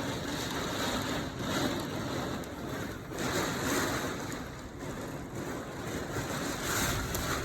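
Gusty wind, about 40 mph, and rain of a passing squall: a continuous rushing noise that rises and falls in gusts.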